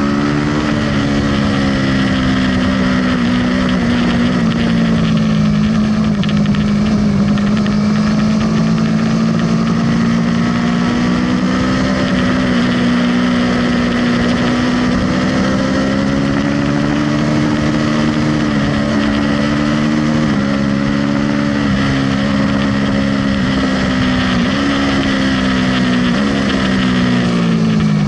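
Aprilia sport bike's engine running hard on a track lap, heard from on board with wind rush over the bike. Its note holds fairly steady for most of the stretch, shifts in pitch in quick steps several times near the end as the rider changes gear, and falls away at the very end as the bike slows.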